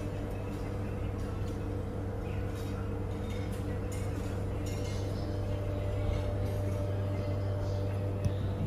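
Steady low hum of room machinery or ventilation, with faint clinks of crockery now and then.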